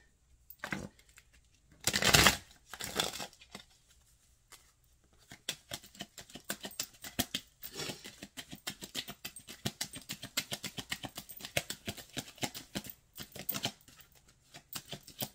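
A deck of angel oracle cards being shuffled by hand. Two short loud swishes come about two seconds in, then from about five seconds a long run of quick, soft card clicks.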